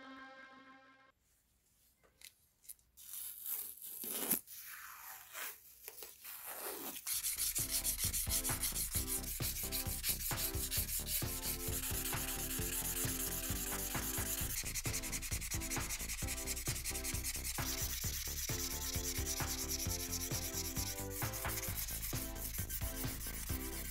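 Sandpaper rubbed by hand back and forth along the flat of a Damascus-steel nakiri kitchen-knife blade, refinishing the blade face after repair. After a few scattered handling sounds, steady rapid rubbing strokes start about seven seconds in and keep going.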